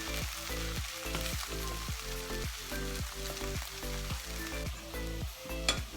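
Sizzling of a carrot, mushroom and onion filling frying in a pan, under background music with a steady beat.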